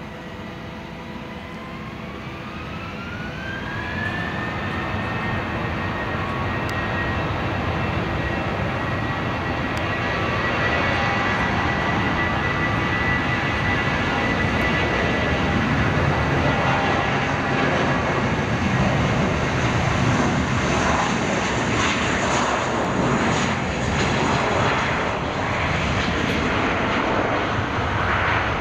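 Large jet aircraft's turbofan engines spooling up to takeoff power. A whine rises in pitch over the first few seconds and then holds steady, while the engine noise grows louder and rougher.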